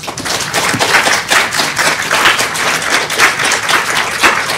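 Audience applauding, starting suddenly and staying steady.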